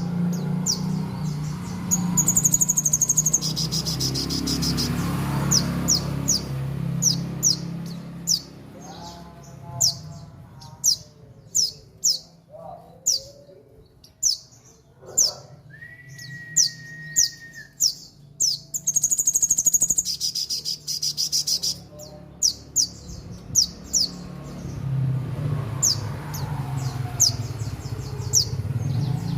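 Sogon bird singing vigorously: a long run of sharp, high, quick downslurred chips, broken twice by dense buzzy trills.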